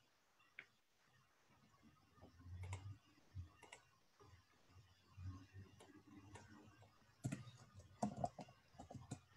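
Near silence: room tone with faint, irregular clicks and taps, a few of them close together near the end.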